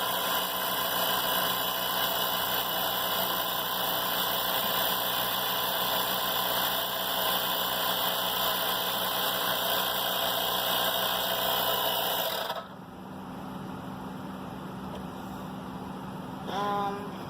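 DBPOWER 12-volt tire inflator running steadily as it tops up an exercise ball, then switched off about twelve and a half seconds in once the ball is full, leaving the car's engine idling underneath. A brief squeak near the end.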